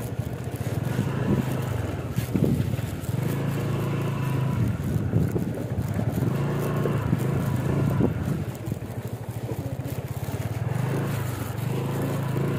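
Motorcycle engine running while being ridden, its note rising and falling with the throttle.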